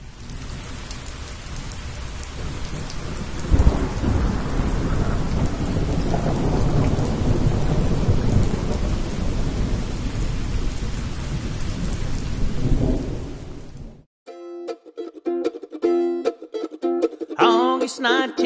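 Thunderstorm: steady heavy rain with rolling thunder and a loud thunderclap about three and a half seconds in. The storm cuts off abruptly about fourteen seconds in, and acoustic plucked-string music begins.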